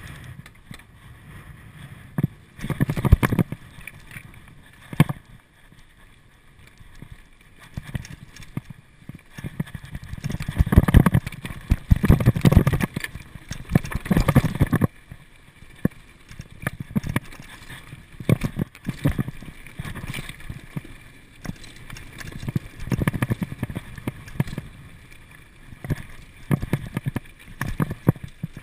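Norco downhill mountain bike descending a loose, rocky trail at speed: tyres crunching over gravel and stones, the bike rattling and knocking over bumps. It comes in irregular surges, loudest about three seconds in and again from about ten to fifteen seconds.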